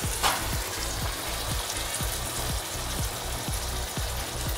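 Finely diced beef sizzling as it browns in oil in a nonstick frying pan, a steady crackling hiss. Soft background music with a steady beat runs underneath.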